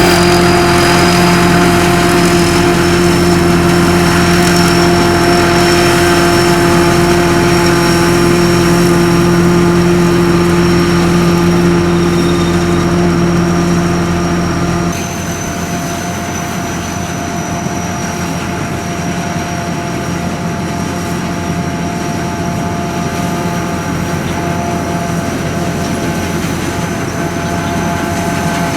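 A Sakpattana SS-200 mini combine harvester runs steadily, its engine and machinery giving an even hum with a high whine. About halfway through, the deep engine tones drop out suddenly and the sound turns a little quieter.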